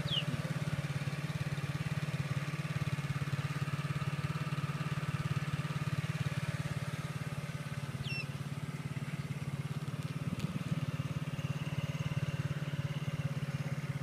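Small motorbike engine running steadily at a low, even pace while riding, with no revving.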